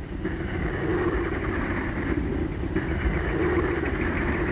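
An engine running with a steady drone.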